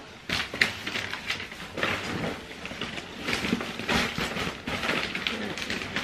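Rustling and crinkling of a large woven plastic bag as things are handled and dropped into it, with irregular light knocks and scrapes.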